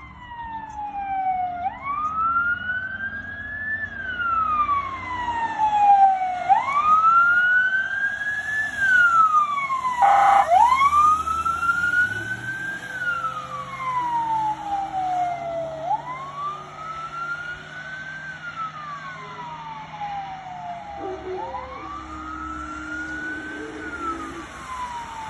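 Fire department emergency vehicle siren wailing as the vehicles pass, in five slow cycles, each a quick rise then a long falling glide. A short loud burst cuts in about ten seconds in, over a low rumble of vehicle engines.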